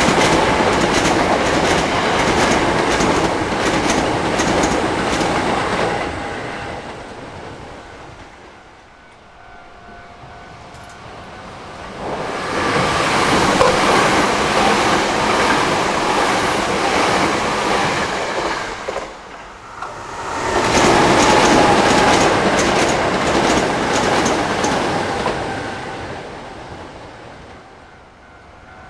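Hankyu Kyoto Line electric trains passing a level crossing, wheels clattering over the rail joints. There are three loud passes: the first fades about six seconds in, the next builds around twelve seconds, and the last comes in around twenty-one seconds and fades near the end.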